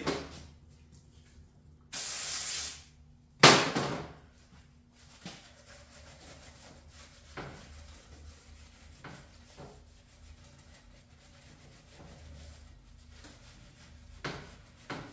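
An aerosol cleaner sprayed in one short hiss of under a second, then a sharp knock, the loudest sound here. After that comes quiet rubbing with a few small clicks as a shop towel wipes the transmission case's gasket surface clean.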